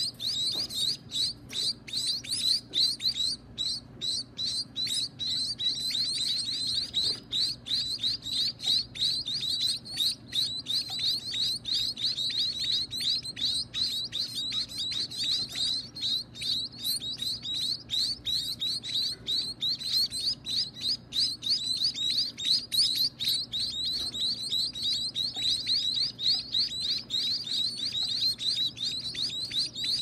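Finch nestlings begging to be fed: a continuous, rapid chorus of short high chirps, several a second, while the parent bird feeds them in the nest.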